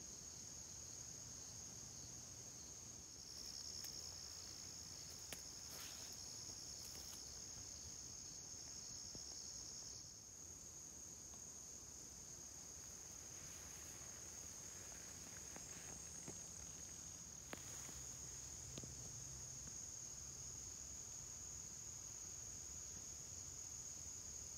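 Crickets trilling in a steady, continuous high tone, with a second, slightly lower trill joining from about three seconds in until about ten seconds in. A few faint clicks.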